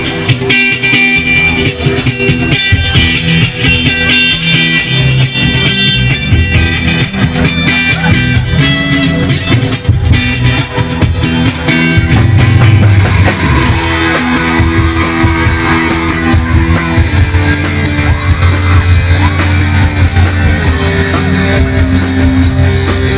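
Live band playing a rock-style groove: electric guitar, bass and drum kit together, played loud and without a break. The cymbals and drums grow busier about halfway through.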